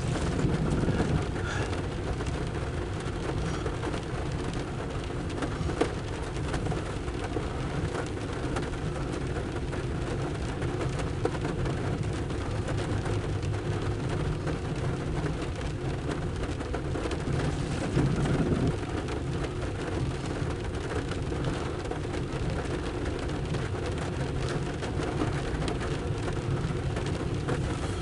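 Rain pattering steadily on a vehicle's roof and windshield, heard from inside the cab, over a constant low rumble.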